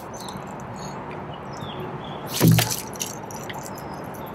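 A crankbait swung hard on a fishing rod smacks once into the inflated side tube of an inflatable kayak, about two and a half seconds in: a single sharp slap with a dull thud. The hook glances off without puncturing the tube.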